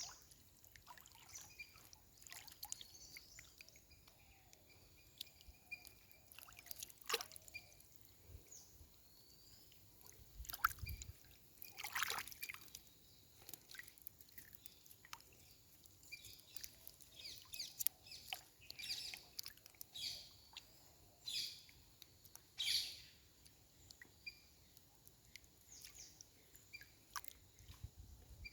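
Irregular water splashes and drips with faint bird calls.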